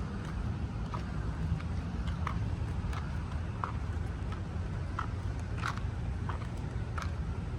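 Footsteps of a person walking on a park path, a short sharp step about every two-thirds of a second, over a steady low rumble.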